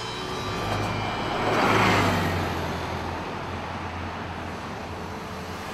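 Street traffic: a car passes close by, its noise swelling to a peak about two seconds in and then fading, over a steady low traffic hum.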